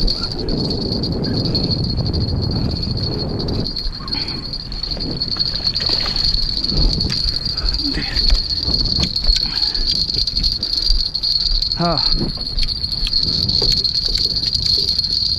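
Insects, crickets or katydids, chirring in one steady high-pitched drone. Low rumbling noise fills the first few seconds, short knocks are scattered throughout, and a brief wavering call sounds about twelve seconds in.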